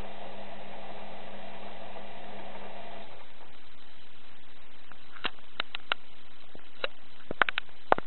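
Washing machine in the water-heating stage of a cotton 40C wash. A steady hum cuts off abruptly about three seconds in, and from about five seconds in there is a scatter of about ten sharp, irregular clicks and ticks.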